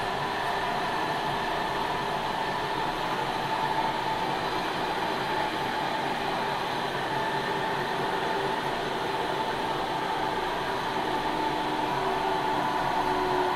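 Running sound inside a Sendai Subway 1000N-series train: a steady rush of wheels on rail with several whining tones from the drive. Near the end some of the tones slide slightly lower in pitch.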